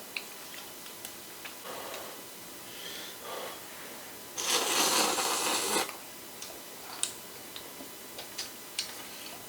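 Mealtime eating sounds: scattered light clicks of utensils against dishes and soft chewing, with a loud noisy rush lasting about a second and a half midway.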